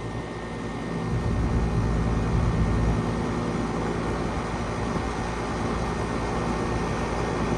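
A 2007 Bryant Legacy central air-conditioner condensing unit running just after start-up: a steady compressor hum under the even rush of its condenser fan, swelling a little about a second in.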